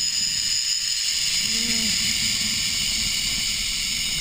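Zip-line trolley pulleys running fast along the steel cable: a steady high hiss with a thin continuous whine, over low wind rumble on the microphone.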